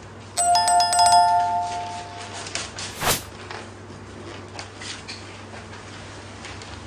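A two-note electronic chime, a lower note and then a higher one almost at once, both ringing out and fading over about two seconds. About three seconds in there is a short, sharp burst of noise.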